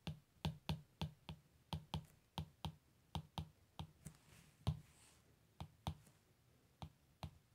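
Stylus tips clicking and tapping against a tablet screen while handwriting: a quick, irregular series of sharp clicks, about three a second.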